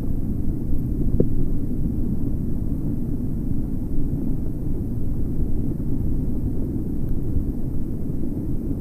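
Steady low rumble of wind buffeting the microphone, with a brief click about a second in.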